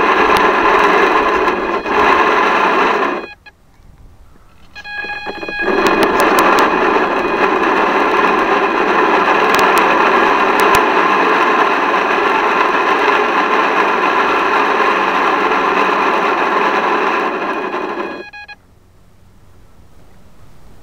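Small electric motor running close to the camera with a loud whine over a hiss, cutting out about three seconds in, starting up again a couple of seconds later, and stopping about eighteen seconds in.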